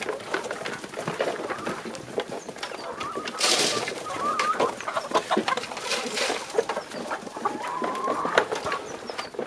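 Flock of Kuroiler chickens clucking as they feed, with a steady patter of clicks from pecking at the feed basin. Short rising calls stand out about three seconds in and near the end, and two brief rushing noises come about three and a half and six seconds in.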